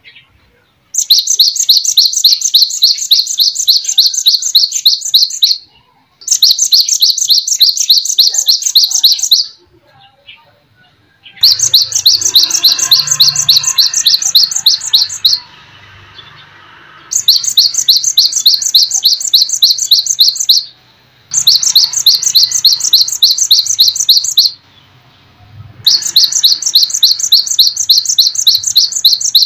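Small songbird singing in six bursts of rapid, evenly repeated high chirps, each lasting about three to four seconds with short pauses between them. A faint low hum runs underneath in the second half.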